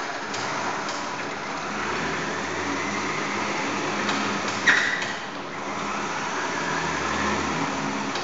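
Small DF-180A portable water-well drilling rig running on test, a steady mechanical hum and rattle, with a single metallic clank and brief ring about halfway through.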